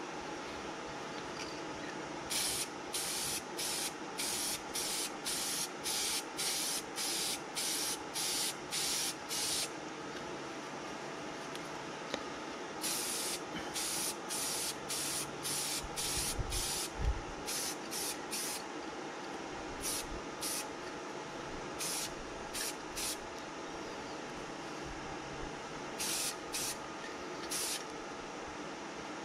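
Aerosol spray-paint can spraying a second coat onto a foam part in short bursts, about two a second for several seconds, then a few longer sprays and scattered bursts near the end. A couple of low thumps come about halfway through, over a steady low hum.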